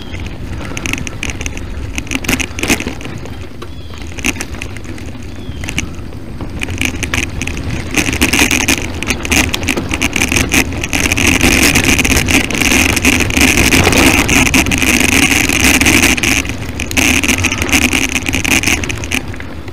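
A loaded touring bicycle and trailer rolling along a rough trail: a continuous rattle and crunch of tyres and frame, louder through the middle.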